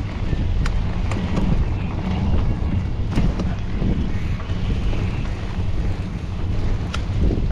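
Wind buffeting the microphone of a camera on a moving mountain bike: a heavy, low rumble, with scattered sharp clicks and rattles from the bike on rough trail.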